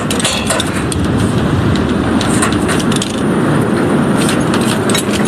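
Strong wind buffeting a small camera's microphone high up in the open, a loud, steady rumbling noise with scattered crackles and clicks through it.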